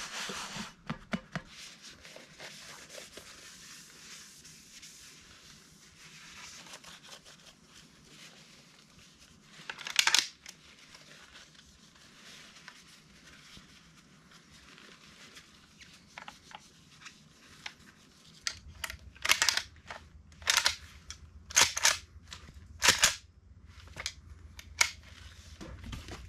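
A lever-action rifle being handled in a small tent. One loud short rasp comes about ten seconds in, then a run of short, sharp rasps about once a second near the end.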